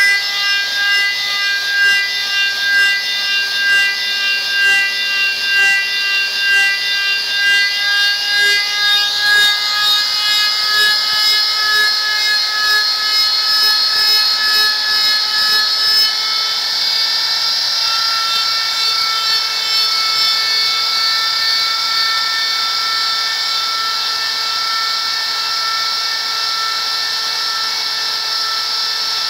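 A die grinder with a V-groove router bit runs with a high, steady whine as it cuts grooves into a square wooden rosette blank spinning in a metal lathe. The sound pulses rhythmically at first, rises slightly in pitch partway through, and then evens out for the second half.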